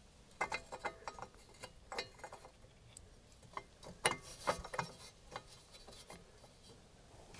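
Scattered light clicks and knocks of metal parts and hand tools being handled while fitting a motorcycle exhaust. A quick cluster comes near the start, and the sharpest pair about four seconds in.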